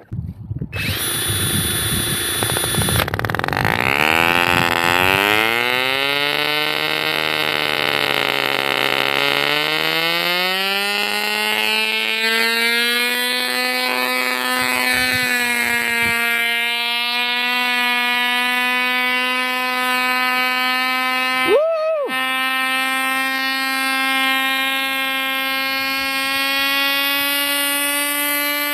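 Tiny glow-fuel (nitro) two-stroke model engine running with a high, steady buzz. Its pitch climbs over the first dozen seconds as it revs up, then holds steady, breaking off briefly about two-thirds of the way through.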